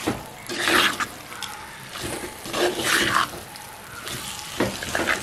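Wooden spoon stirring pieces of mutton fat frying in oil in a clay pot: a wet, sizzling swish about three times, half a second in, about three seconds in and near the end.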